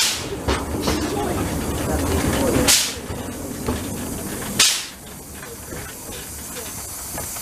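Narrow-gauge steam train running, heard from an open carriage close behind the locomotive: a steady rumble of the wheels on the track that drops away about two-thirds of the way through as the train slows. Short, sharp hissing swishes cut through it about every two seconds.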